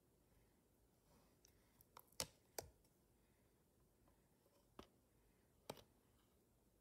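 A few short, sharp plastic clicks and taps from handling a glitter eyeshadow palette and its applicator, the loudest pair about two seconds in and two more around five seconds in, over near silence.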